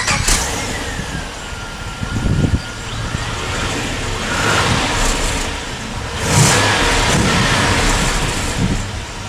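Holden VX Commodore SS's 5.7-litre Gen III V8, heard at the tailpipe just after starting, running and revved a few times, each rev swelling and settling back. Through a new exhaust with a hot-dog muffler at the back it sounds too polite, not what a V8 is supposed to sound like.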